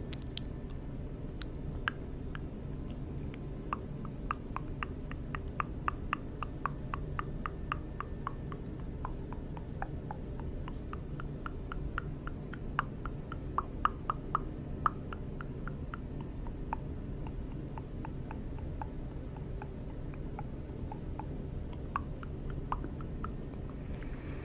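Close-miked mouth sounds: a run of small wet clicks, several a second, thinning out after the middle, over a steady low hum.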